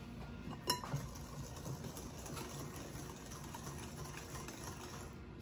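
Wire whisk stirring a wet batter in a glass mixing bowl, soft and irregular, with one sharp clink near the start.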